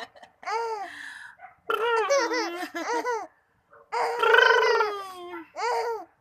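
A five-month-old baby laughing in four bursts of high, rising-and-falling laughter, the loudest and longest starting about four seconds in.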